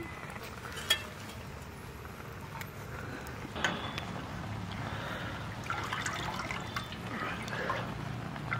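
Hands splashing and swishing in a metal pot of water, washing leafy greens. A sharp click comes about a second in and another a few seconds later.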